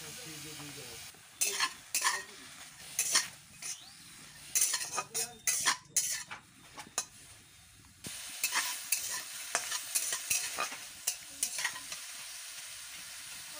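Small shrimp sizzling in hot oil in a wok while a spatula stirs them, scraping and knocking against the pan in irregular strokes.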